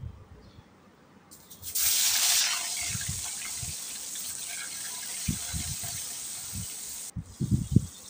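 Pieces of rui (rohu) fish going into hot mustard oil in a kadai: a sudden loud sizzle about two seconds in settles into a steady frying hiss. A few low thuds come near the end, and the sizzle cuts off suddenly shortly before the end.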